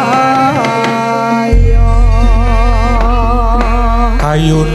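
A Javanese sinden (female gamelan singer) sings an ornamented line, holding notes with a wavering vibrato, over gamelan accompaniment. A deep low tone comes in about one and a half seconds in.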